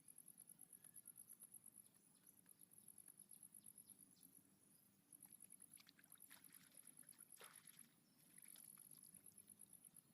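Faint, rapid high-pitched insect chirping, about seven pulses a second, broken by short pauses, with a few faint clicks around the middle.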